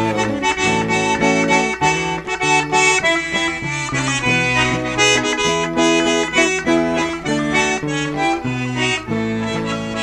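Piano accordion playing an instrumental interlude: a melody over bass notes and chords that change in a steady rhythm.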